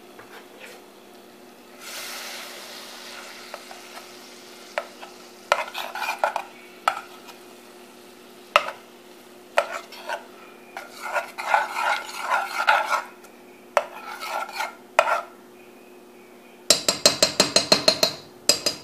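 A fork stirring and scraping chunks of butter melting in a saucepan, with a light sizzle, in scattered bursts. Near the end it speeds into a fast, regular run of clicks against the pot.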